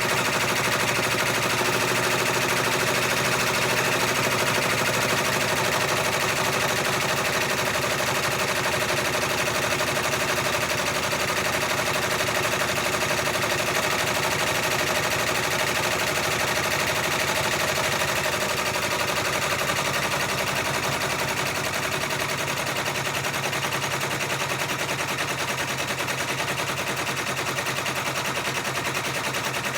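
Multi-needle embroidery machine stitching, a rapid steady clatter of needle strikes, slightly quieter in the last third.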